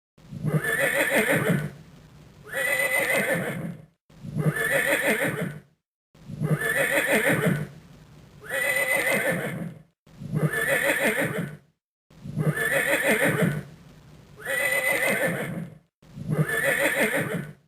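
Horse whinnying: the same neigh repeated nine times, about one every two seconds, each call ending in a high shaking trill.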